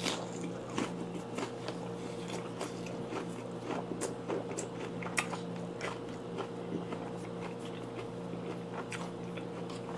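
Close-up chewing of a mouthful of vinegar-cured mackerel sashimi (shime saba) wrapped with raw onion and radish sprouts, with irregular sharp clicks of the bite being worked.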